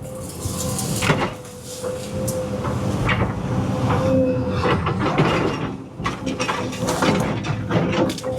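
Cat 320 EL excavator running with a steady whine, with repeated knocks and clunks as the bucket works dirt and debris.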